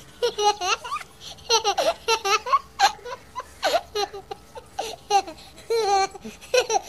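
A small child's high-pitched giggling and babbling, in many short wavering sounds one after another.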